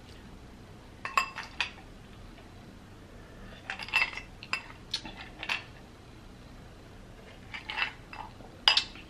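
Ice cubes clinking in a stemmed wine glass as it is picked up and handled: sharp glassy clinks in three short clusters, about a second, four seconds and eight seconds in.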